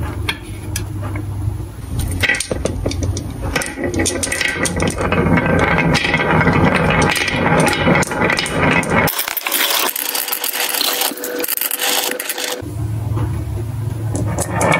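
Dozens of glass marbles rolling down a carved wooden track's wavy groove, clacking against the wood and against each other in a dense, continuous clatter as they pile up. The clatter starts about two seconds in, when the gate is lifted.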